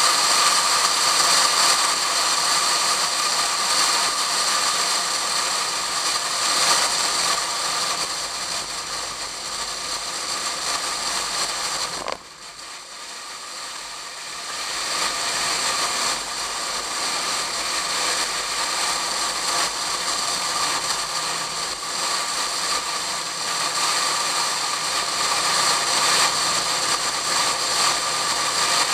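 Wind rushing and buffeting over a camera sealed in a waterproof case on the outside of a moving Pontiac Fiero, with the car's engine running underneath. The noise drops off sharply about twelve seconds in and builds back up over the next few seconds.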